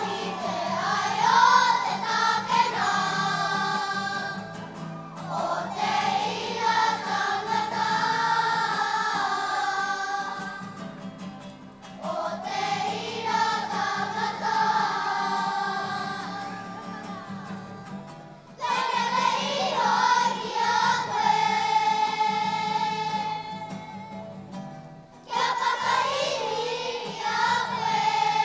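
A children's kapa haka group singing a waiata together as a choir, in long sung phrases with short breaks between them.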